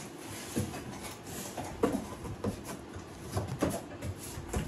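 Cardboard shipping box being handled and opened: a string of irregular knocks and thumps on the cardboard, with scraping and rustling between them.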